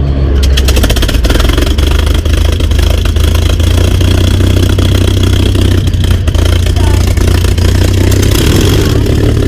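P-51 Mustang's Merlin V-12 engine running just after start-up, with rapid exhaust firing pulses. It steps up in level a moment in, then runs steadily at a loud idle.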